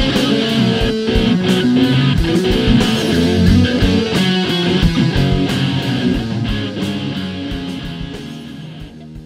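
Guitar music with a steady beat, fading out near the end.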